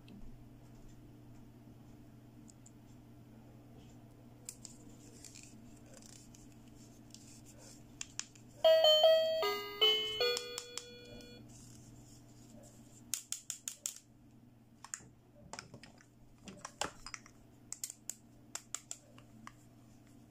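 Toy stethoscope from a doctor play set playing a short electronic chime of a few notes when its heart-shaped chest piece is pressed, about nine seconds in. Afterwards, light plastic clicks and taps as the toy pieces are handled.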